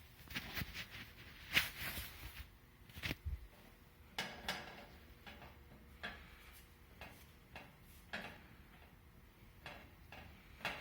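Scattered light clicks and knocks of handling at an electric range, the sharpest about one and a half seconds in.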